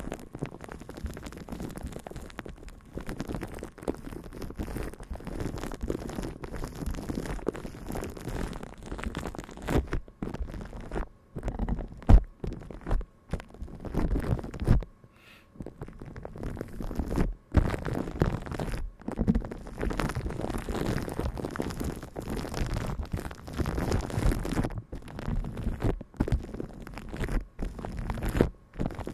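Close-miked ASMR trigger sounds: muffled rubbing and scratching in uneven strokes, with a few short pauses.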